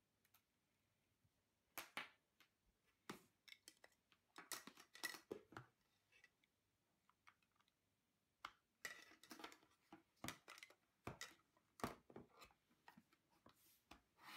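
Faint, scattered clicks and rustles of hands handling plastic and paper packaging and a Fibaro Swipe gesture-control panel on a wooden table.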